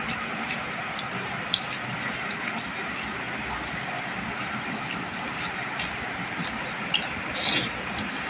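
Fingers squishing cooked rice mixed with potato curry on a plate, with a few sharp clicks about 1.5 s in, near 7 s and just after, over a steady hiss.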